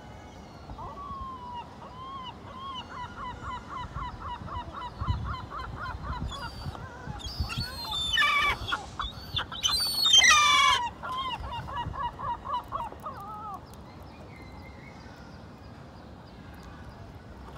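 Gull calling in a rapid run of short, repeated cries, about five a second, with a few louder cries about eight and ten seconds in. The calling stops about thirteen seconds in.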